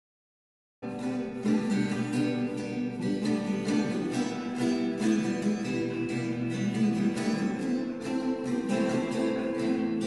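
Acoustic guitar playing the instrumental introduction of a ballad, picked notes ringing over one another, starting about a second in after a short silence.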